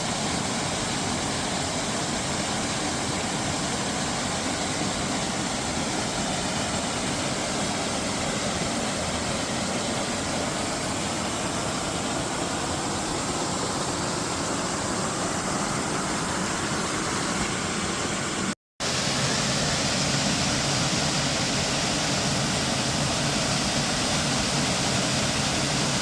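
Waterfall rushing with a steady, unbroken roar of falling water. It breaks off for an instant about two-thirds of the way through, then carries on slightly louder.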